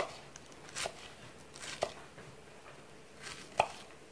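Knife chopping scallions on a wooden cutting board: a few separate strokes about a second apart.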